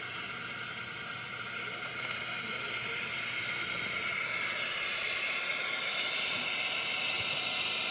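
Steady hiss of radio static with faint steady tones in it, growing somewhat louder about halfway through.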